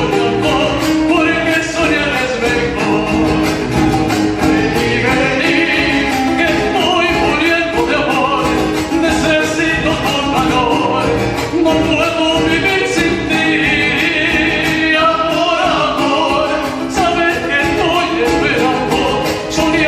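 Folk song with singing over instrumental accompaniment and a steady beat.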